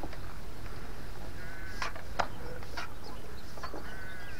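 Birds calling, short chirps over a steady low rumble, with a few short sharp clicks about two seconds in.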